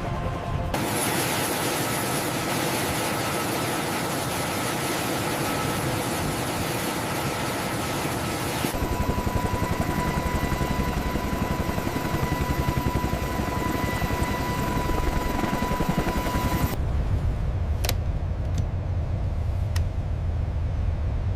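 Helicopter noise in three abruptly cut sections: first a steady rushing noise, then a steady high whine over a fast rotor beat, then a lower rotor thump with two sharp clicks.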